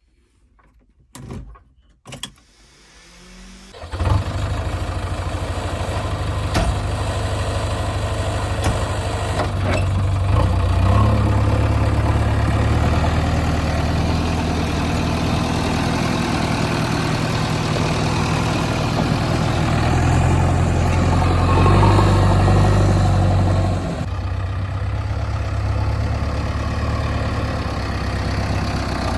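JCB backhoe loader's diesel engine starting up about four seconds in, after two short knocks, then running steadily, its revs rising and easing as it works.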